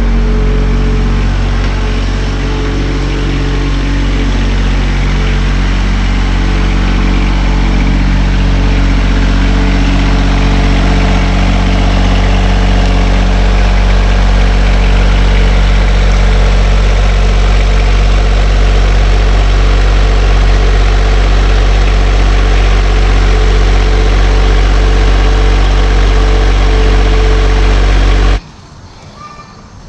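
A vehicle engine running steadily at a fairly constant speed, then shut off suddenly near the end.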